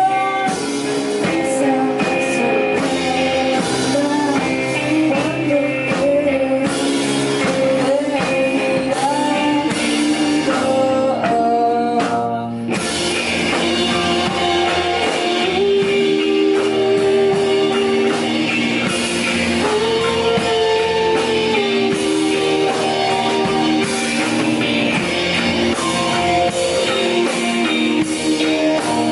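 Rock song with electric guitar, drum kit and singing. About twelve seconds in, the cymbals and high end drop out briefly before the full band comes back.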